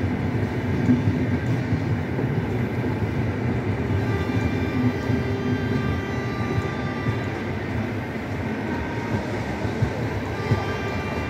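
Secunderabad–Guntur Intercity Express passenger coaches rolling past: a steady rumble of wheels on rails with a few short knocks. A faint high whine comes in about four seconds in and again near the end.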